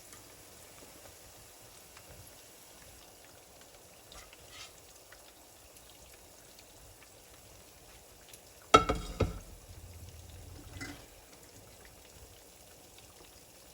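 Marinated chicken pakora frying in oil with a faint, steady sizzle. About nine seconds in come two loud, sharp clanks close together, and a lighter knock follows a little later.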